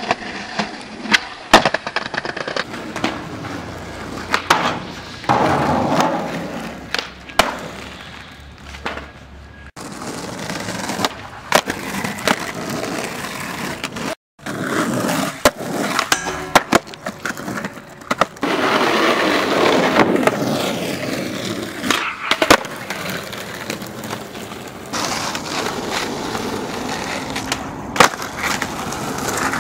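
Skateboard wheels rolling over concrete and asphalt, broken by many sharp clacks from the board hitting the ground. The sound changes abruptly a few times where one clip cuts to the next.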